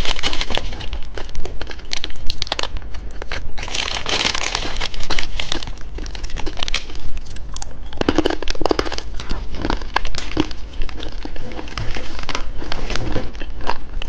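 Plastic candy packaging crinkling and being torn open, a dense run of irregular rustles and crackles with several louder swells.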